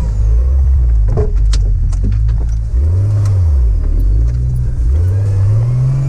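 Turbocharged TB42 straight-six engine of a GQ Nissan Patrol comp truck, heard from inside the cab, revving up and down as it is driven over rough ground: the revs swell and drop around the middle, then climb steadily near the end. A few sharp knocks and clunks come between about one and two and a half seconds in.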